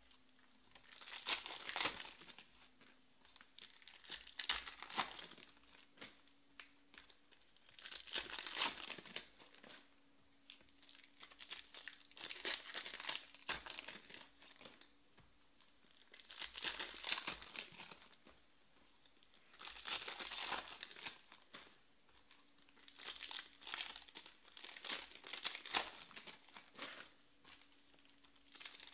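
Foil trading-card pack wrappers crinkling and tearing as they are ripped open by hand, in repeated bursts every three to four seconds, one pack after another.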